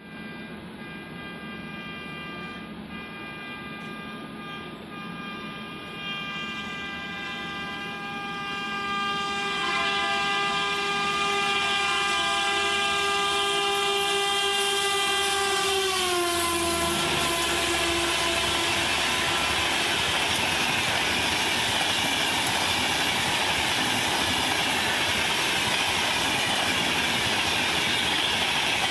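Howrah Rajdhani Express's locomotive horn held in one long continuous blast, its pitch dropping about 16 seconds in as the locomotive passes. The horn fades out under the loud rush and clatter of the train's coaches going by.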